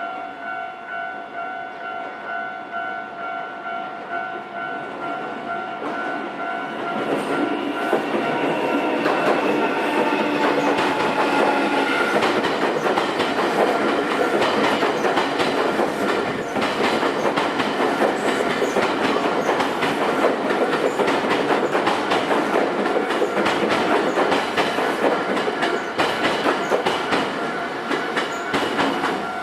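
Level-crossing warning bell ringing in a steady repeating pattern; about seven seconds in a Nankai Railway train arrives and passes over the crossing, its wheels clattering over the rail joints, loud to the end, with the crossing bell still sounding under it.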